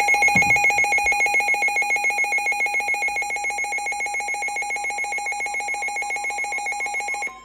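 Emergency Alert System attention signal: a loud, harsh electronic alarm tone pulsing rapidly at about ten pulses a second for some seven seconds, then cutting off abruptly, announcing an emergency alert.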